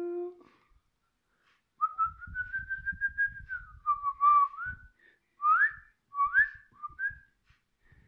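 Whistling: one long held note, then a lower note and several short rising whistles, with soft low crackling underneath for the first few seconds.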